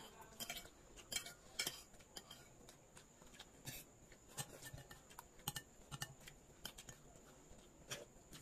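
Spoons and forks clinking and scraping faintly against plates as people eat, with irregular light clinks about once a second.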